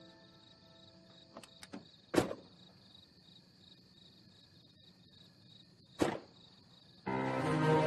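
Car doors thudding shut twice, about two seconds in and again about six seconds in, with a few light clicks before the first, over a faint steady high hiss of night ambience. Music comes in near the end.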